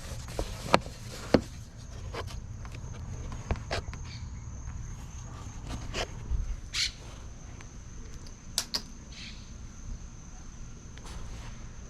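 Scattered light clicks and knocks, about a dozen spread irregularly, as of hand tools working on a power steering line fitting. Under them runs a steady low hum and a thin, steady high whine.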